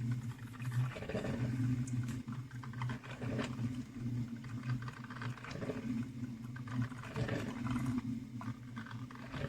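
Salter One Cup filter coffee maker brewing: a steady low hum broken by irregular bursts of gurgling and sputtering, about one every one to two seconds, as the heated water is pushed up through the machine.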